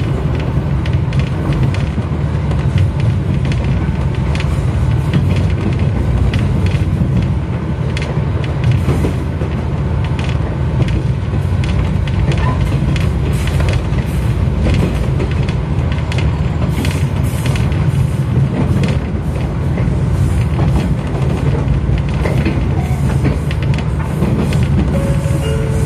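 Moving train heard from inside the carriage: a steady low rumble of wheels on the rails, with scattered clicks and knocks throughout.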